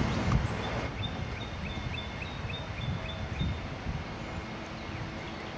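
A bird calling in a quick series of short, high chirps, about three a second, over a steady rushing background of wind and water.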